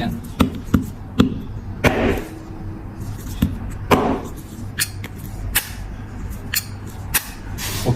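Metal lid of a flip-top lighter being snapped open and shut over and over, sharp clicks at irregular intervals, with brief rubbing swishes about two and four seconds in. The lid spring has just been bent to a little over 90 degrees to bring back the lid's sound.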